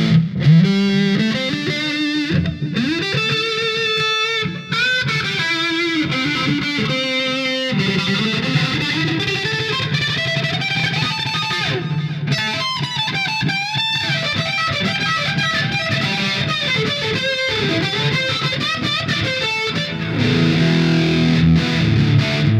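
Oscar Schmidt OS-50 electric guitar played through a Fender Mustang LT25 modelling amp on its "Metal Lead" factory preset. It plays distorted single-note lead lines with string bends and held notes, turning to heavier low-register playing about two seconds before the end.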